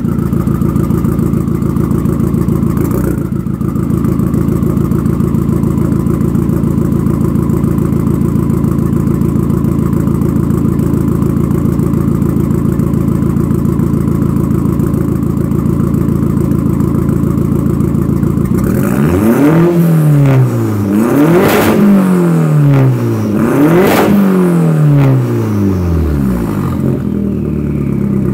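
Straight-piped Audi TT turbocharged four-cylinder, with a catless downpipe and no mufflers, running at a loud, steady idle at the exhaust tip. About two-thirds of the way in it is revved in several quick blips, the pitch shooting up and falling straight back each time.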